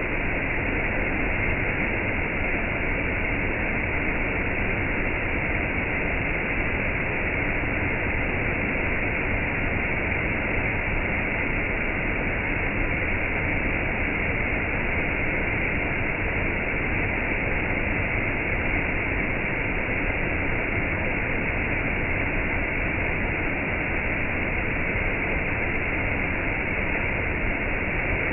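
Water rushing steadily down a small waterfall in a stream, an even, unchanging noise.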